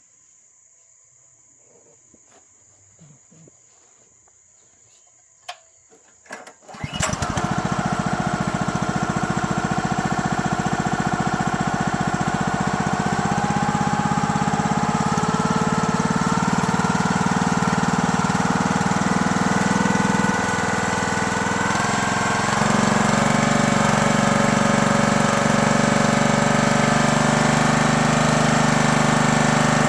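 A few sharp knocks, then the small gas engine of a 28-ton log splitter starts about seven seconds in and keeps running steadily. The loudness shifts slightly around 20 and 22 seconds.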